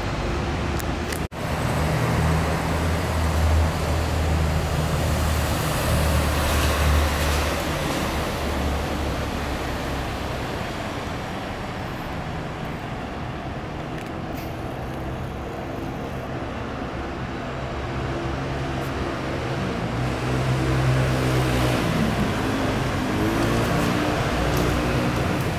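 Road traffic: motor vehicles running and passing, a steady rumble with a low engine hum that swells for several seconds near the start and again about twenty seconds in.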